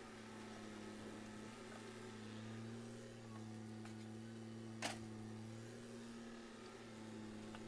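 Distant mini excavator's diesel engine running under working load, a steady low drone that swells and eases. A single sharp click just under five seconds in.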